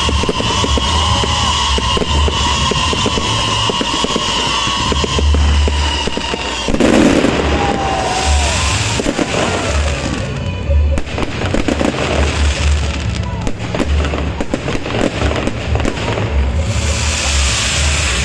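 New Year fireworks display: a dense run of bangs and crackles over repeated low booms.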